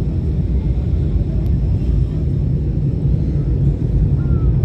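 Steady low rumble of an airliner's cabin noise in flight, the engines and rushing airflow heard from inside the cabin during descent.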